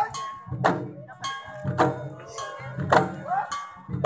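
Garo Wangala music: long wooden dama drums beaten by hand in a steady processional rhythm, a strong beat about once a second with lighter strokes between. Each strike is followed by a metallic ringing.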